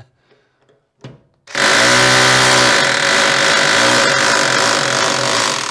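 Electric rotary hammer starting about a second and a half in after a brief blip, then hammering steadily with a loud, rapid rattle of blows. It is driving a punch bit against the rear axle shaft to force it inward through the wheel hub.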